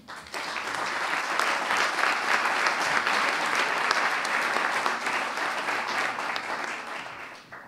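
A group of people applauding: steady clapping that starts just after the beginning and dies away near the end.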